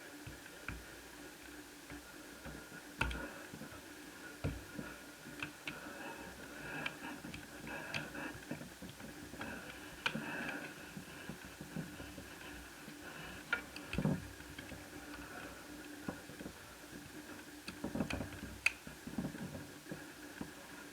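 Scattered small clicks and light taps as cables are unplugged under the keyboard of an opened Asus Eee PC 1001P netbook. A faint steady hum sits underneath.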